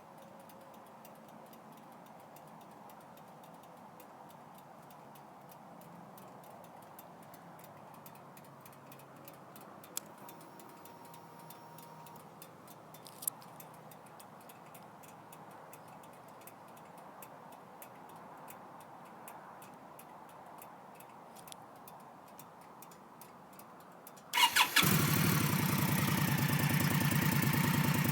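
Quiet background with a couple of faint clicks, then about 24 seconds in an Indian Scout's V-twin engine is started: a brief crank and a few sharp catches, then it settles into a steady idle.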